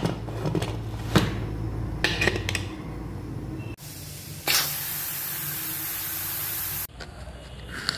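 Aluminium pressure cooker letting out steam through its vent after the whistle weight is lifted: a steady hiss starts about four and a half seconds in, runs for a couple of seconds and cuts off sharply. Before it come a few metallic clinks over a low hum.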